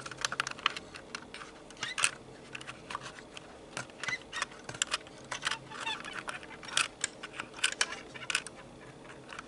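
Irregular small clicks and taps of HO-scale model train cars being handled and coupled together on the track.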